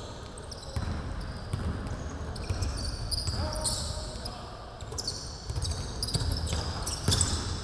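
Basketball being dribbled on a wooden gym floor during a game, with repeated thuds and sneakers squeaking on the court several times.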